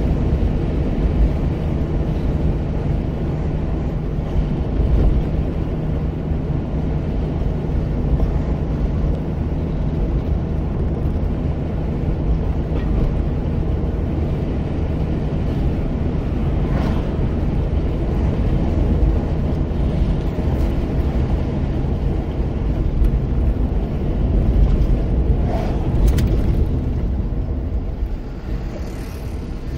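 Steady low rumble of a car driving on a city street, heard from inside the cabin: engine and tyre road noise. It gets somewhat quieter near the end.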